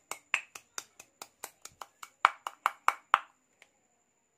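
Stone pestle pounding garlic cloves in a stone mortar: a quick run of sharp knocks, about four or five a second, loudest near the end. It stops a little after three seconds in, with one last light tap.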